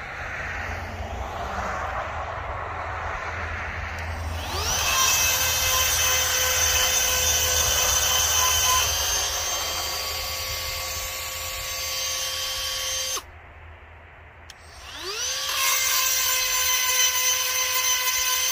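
Cordless rotary tool with a small grinding stone, sharpening the cutter teeth of a saw chain. It spins up with a rising whine and runs at a steady high pitch, stops about 13 seconds in, then spins up again about two seconds later.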